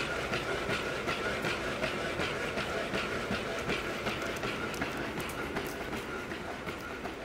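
Boston Dynamics Spot quadruped robot walking: a rhythmic clicking of its feet, a few times a second, over a steady whine from its leg motors, fading out near the end.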